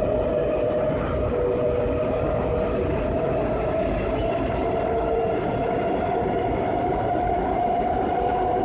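Washington Metro subway car running between stations, heard from inside the car: a steady rumble with a held whine.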